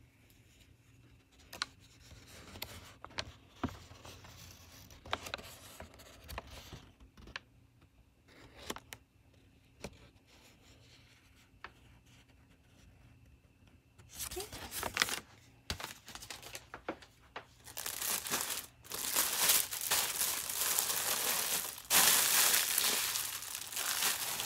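Light rustling and clicks of a paper colour chart being handled, then from about halfway loud, dense crinkling of a diamond-painting canvas with its protective film and plastic drill bags being unrolled and handled.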